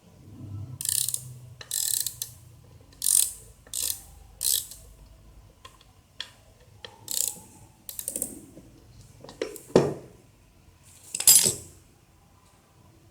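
Ratchet wrench clicking in short bursts, about nine of them, as bolts on a small tractor's clutch assembly are loosened. A metallic knock comes near ten seconds in.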